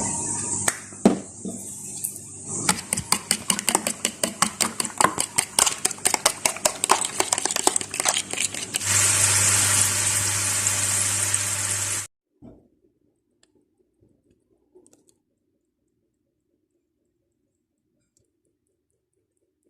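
Eggs being beaten with a fork in a bowl, a rapid run of clicks at about five strokes a second. Then a few seconds of steady hiss with a low hum that cuts off suddenly.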